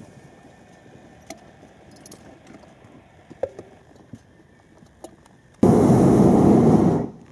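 Hot-air balloon's propane burner firing in one loud blast of about a second and a half, starting suddenly near the end and cutting off, after a quiet stretch with a few faint clicks.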